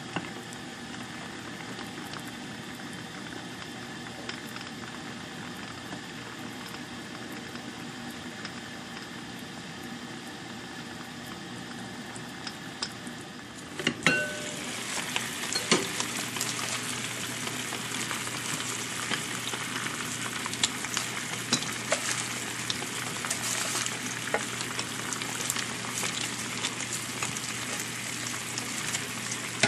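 Seafood and white wine cooking in a tajine pot, a steady soft sizzle while the lid is on. About halfway through, the lid is lifted with a clink, and the sizzling turns louder and brighter with frequent small crackles and pops.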